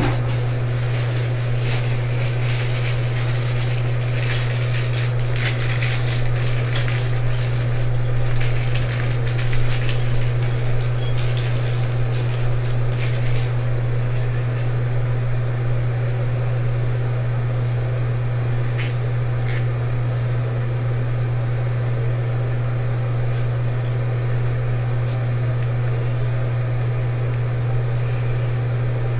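A steady low hum runs throughout, with light, scattered clicks and rattles of toilet parts being handled, busiest in the first half.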